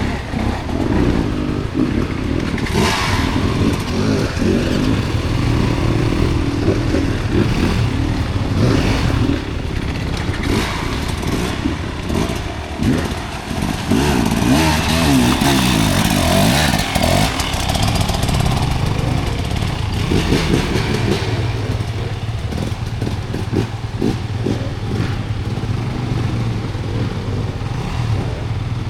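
Off-road dirt bike engine revving up and dropping back as it is ridden over rough, rocky ground, with knocks and clatter from the terrain throughout and a louder surge of revs a little past the middle.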